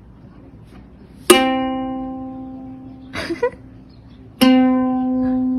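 Plucked string instrument playing two single notes, one about a second in and one past the midpoint. Each starts sharply, then rings and slowly fades.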